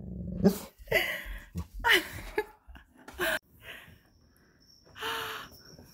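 A dog making a string of short whines and huffs, with a longer breathy sigh about five seconds in.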